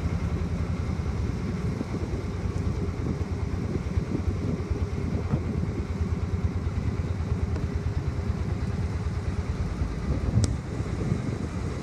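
Small river boat's engine running steadily under way, a low, fast, even chugging. A single short click about ten seconds in.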